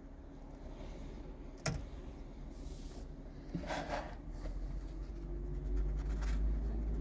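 Small handling noises of food being put together on a plastic plate: a sharp click about one and a half seconds in, then brief scraping and rubbing sounds, with a low rumble growing near the end.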